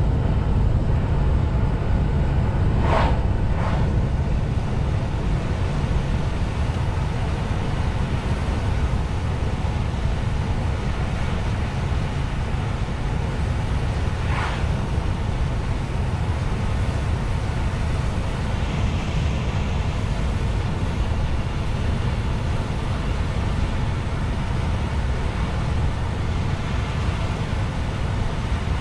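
A truck driving along: the engine and road noise make a steady low drone. Short higher-pitched sounds break in twice about three seconds in and once around fourteen seconds.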